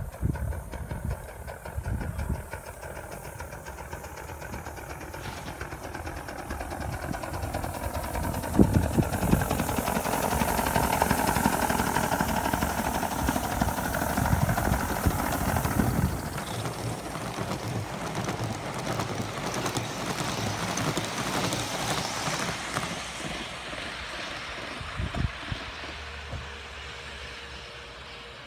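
Live steam model locomotive running past on the track, chuffing and hissing. It grows louder to a peak between about ten and sixteen seconds in, then fades as it moves away.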